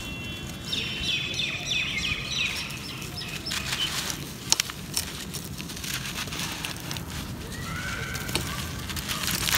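Hands crumbling moulded clumps of dry sandy dirt: a grainy crunch and the trickle of falling grains, with a few sharp clicks. A bird chirps a quick run of calls in the first few seconds and gives another short call near the end.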